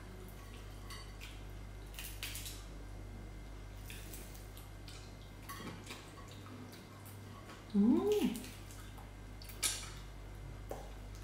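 Quiet sounds of fried fish being picked apart and eaten by hand, with small clicks and taps against a plate over a steady low hum. About eight seconds in there is one short pitched sound that rises and then falls.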